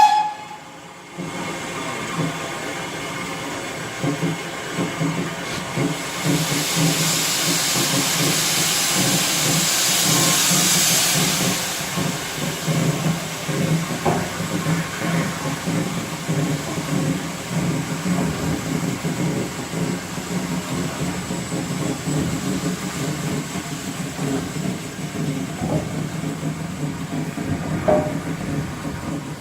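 GWR Castle class steam locomotive 5043 Earl of Mount Edgcumbe standing in steam with a steady low rumble, and a loud hiss of escaping steam from about six seconds in that dies away about twelve seconds in. A few faint knocks follow.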